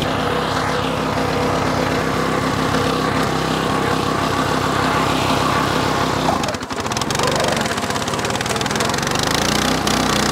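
Walk-behind flail mower's 8.5 hp engine running steadily as it is pushed through tall grass, with a brief dip in level about six and a half seconds in.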